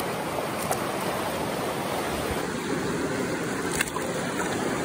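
Fast river water rushing and gurgling around a hand held close in the current, a steady flow with a couple of faint clicks.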